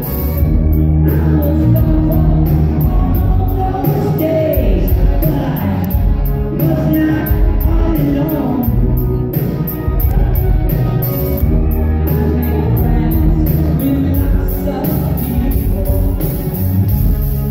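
Rock band playing live, with a male lead singer's vocals over the band and a steady beat, heard from the audience.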